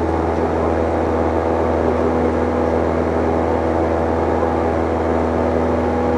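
Cessna 172's piston engine and propeller running at takeoff power, heard from inside the cockpit as a steady, unchanging drone through the takeoff roll and lift-off.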